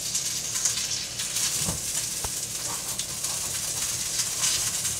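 Large pepper-crusted steak sizzling steadily as it sears and browns in a stainless steel skillet, a pan the cook calls too hot. There are a couple of faint clicks about two seconds in.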